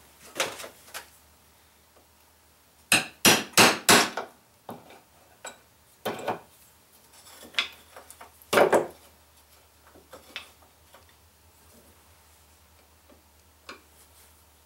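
A hammer striking a steel punch to drive a ground-down rivet out of a chainsaw chain laid on a wood block. A quick run of four sharp metal strikes comes about three seconds in, then single strikes spaced a couple of seconds apart, with lighter taps between them.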